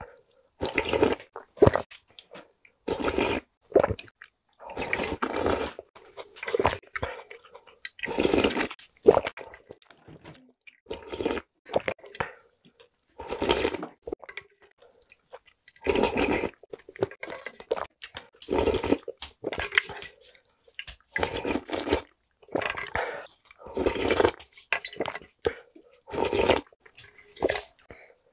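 Close-miked eating sounds: spoonfuls of spicy soft-tofu broth and rice slurped from a spoon, wet chewing, and the spoon scraping the bowl. They come as short bursts every second or two with quiet gaps between.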